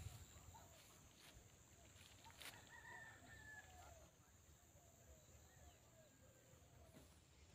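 Near silence with a few faint, distant bird calls in the first half, short rising and falling chirps, then almost nothing.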